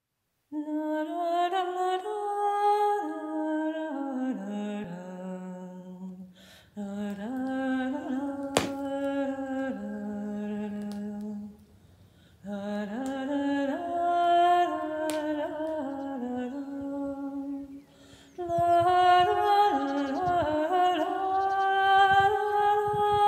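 A woman humming a slow, wordless tune in four long phrases, holding and stepping between notes, with a short pause between phrases.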